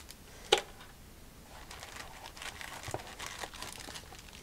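A sharp knock about half a second in, then plastic packaging crinkling and rustling as a small clear bag of accessories and parts is lifted out of a foam-lined box.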